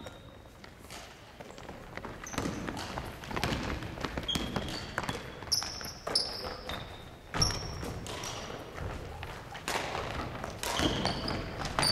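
Basketball game on a wooden gym floor: the ball bouncing in scattered knocks and sneakers squeaking in short, high chirps, busier in the second half.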